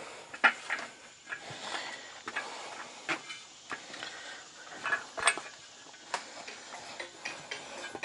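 Scattered clicks, taps and rubbing as hands work a rubber inner tube into a Kubota BX tractor tire on its wheel rim. The sharpest knocks come about half a second in and a little past the middle.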